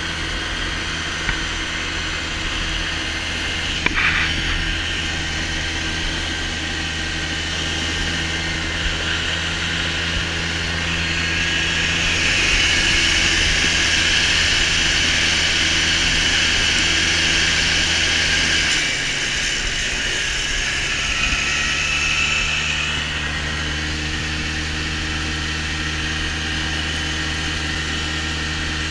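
A vehicle engine running steadily with a constant rushing noise. The rush grows louder for several seconds in the middle, and the engine's tone changes about two-thirds of the way through.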